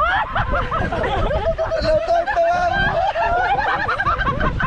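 A group of people laughing and chuckling together, several voices overlapping, over a steady low background rumble.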